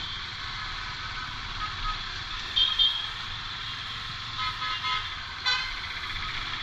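Several vehicle horns toot in busy town traffic over the steady engine and road noise of a moving motorcycle. The loudest toot comes a little under three seconds in, and a few shorter beeps follow.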